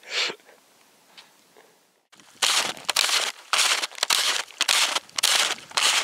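Snowshoe footsteps crunching through deep snow, about two steps a second, starting a couple of seconds in after a quiet stretch.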